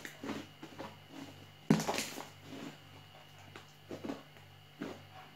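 Foamy slime made with shaving foam being squeezed and kneaded by hand, giving irregular wet squelches and pops, the loudest a sharp pop a little under two seconds in.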